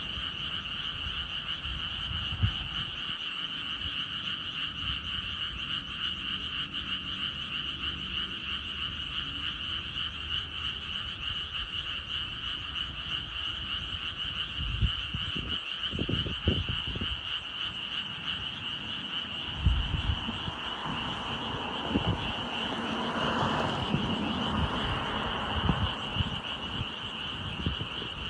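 Dense chorus of many frogs calling all at once, a steady high-pitched wall of sound. A few low thumps come through, mostly in the second half.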